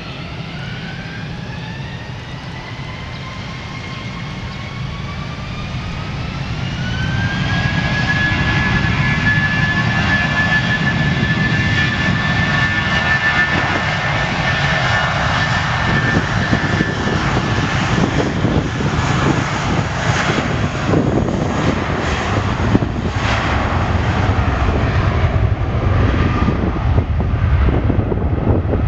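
Airbus A320-family twin-jet's engines spooling up to takeoff power: a whine rising in pitch over the first several seconds, then holding steady. After that comes a loud, steady rumble of jet noise as the plane accelerates down the runway past the fence.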